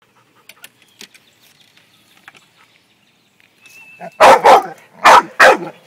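Bull terrier barking at a push lawnmower: a quiet lead-in, then four loud, sharp barks in quick succession, starting about four seconds in.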